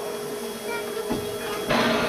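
Steady hum and hiss in the cab of steam locomotive W934, from the boiler and the open, burning firebox. A dull knock comes about a second in, and a short rush of hiss near the end.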